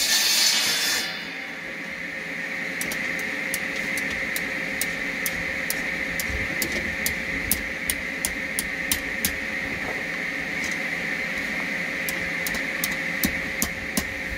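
Light, irregular hand-hammer blows on hot steel held in tongs at the anvil, roughly two sharp strikes a second, as scales are chiselled into the piece, over a steady hum. A loud hiss cuts off about a second in.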